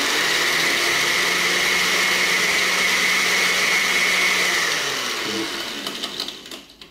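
Countertop blender with a chrome base running steadily, blending orange juice, champagne and ice cubes. About five seconds in it is switched off and the motor winds down, falling in pitch until it stops.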